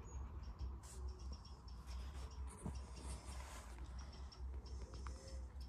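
Faint low rumble with light, scratchy rustling from the handheld camera being moved.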